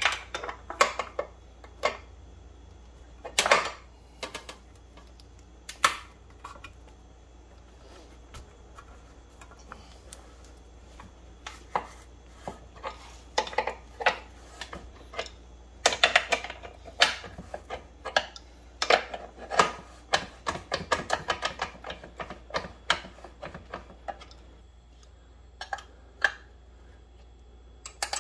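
Metal wrench clicking and clinking against the rear axle and chain adjuster nuts of a Yamaha FZ1 as they are loosened to slacken the drive chain. Scattered sharp clicks, bunched into quick runs of clicks in the middle.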